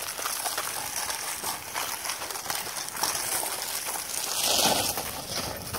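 Snowboard sliding and footsteps crunching over a thin crust of icy snow and dead leaves: a steady rough scraping that swells about four and a half seconds in.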